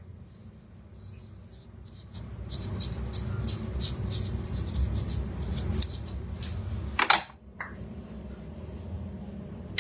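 A metal measuring spoon tapping and scraping against a cooking machine's steel mixing bowl, a quick run of small clinks over a low rumble, ending with one loud clack about seven seconds in.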